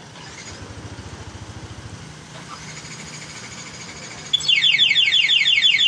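Yamaha NMAX 155 scooter's single-cylinder engine idling quietly, then about four seconds in its aftermarket alarm siren sounds loudly: a fast string of falling electronic chirps, several a second.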